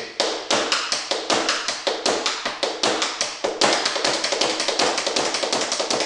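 Metal tap shoes striking a wooden floor in the jackhammer tap step, a repeating spank, stamp, spank, dig on alternating feet. It makes a continuous run of crisp taps that quickens about halfway through.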